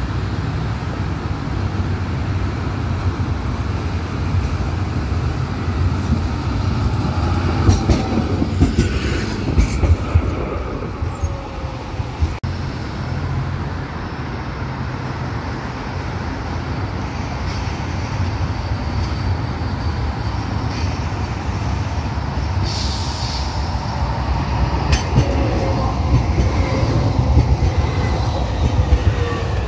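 Street tram running on its track and passing close by near the end: the rumble of wheels on rail grows louder, with a gliding whine and some wheel squeal, over a steady rumble of city traffic. A few sharp clicks and a falling squeal come about eight to ten seconds in.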